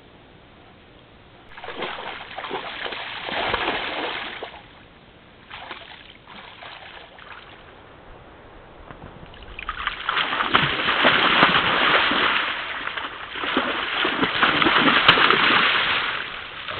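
A young moose splashing as it runs and bounds through a shallow forest pool, in rough bouts of churning water. A shorter bout comes in the first seconds, and the long, loudest stretch starts about ten seconds in.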